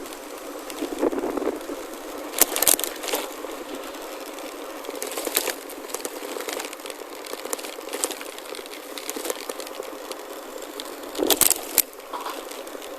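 Tyres of a chromoly gravel bike rolling over a gravel forest road: a steady crunching hiss with sharp knocks and rattles as the bike jolts over stones, the loudest about two and a half seconds in and again near the end.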